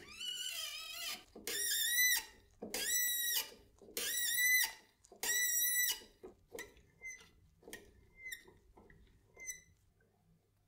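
Threading die in a hand die stock cutting a thread on a metal rod, squealing with each turn: about five long, high squeals roughly a second apart, then several shorter squeaks that stop near the end.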